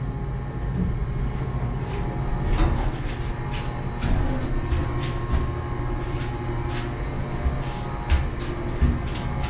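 Passenger elevator car in motion, heard from inside the car: a steady low rumble and hum with a thin high steady tone and scattered light clicks.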